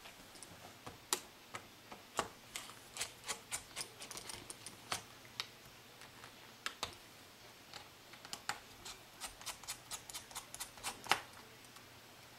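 Small Phillips screwdriver and tiny screws being worked out of a laptop's plastic screen bezel: a long run of light, irregular clicks and ticks, a few of them sharper.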